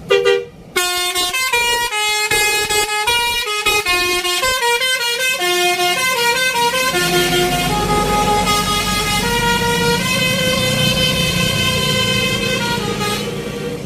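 Bus 'telolet' melody horn playing a quick tune of stepped notes after a short opening blast. From about halfway through the notes lengthen and engine and road noise swell beneath them.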